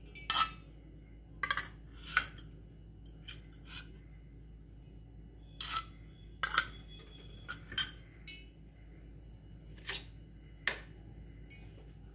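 Steel utensils clinking: a steel spoon and a small steel bowl knocking against a stainless steel kadai, about a dozen sharp, irregular clinks, a few of them ringing briefly.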